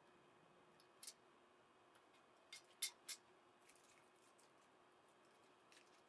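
A few short, sharp clicks and ticks from wires and small plastic cable connectors being handled, the loudest a quick run of three about two and a half to three seconds in, over faint room hiss.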